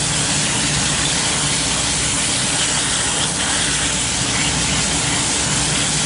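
Garden-hose water spraying steadily onto an air-conditioner condenser coil, a constant hiss, rinsing acid coil cleaner off the fins until the runoff runs clear. A steady low hum runs underneath.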